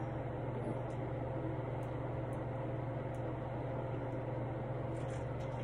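Steady low hum with an even hiss: unchanging room noise of a running appliance or fan.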